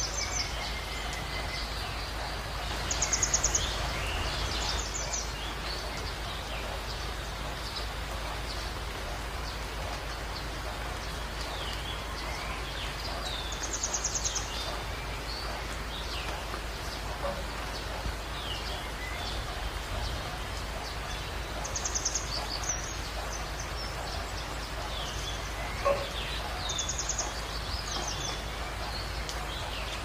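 Steady hiss of rain and a stream running over rocks, with songbirds calling throughout: scattered chirps and, standing out above them, a few short, rapid high trills.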